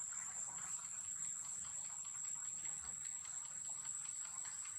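Forest insects droning: one steady, high-pitched buzz held without a break, over a faint crackling hiss.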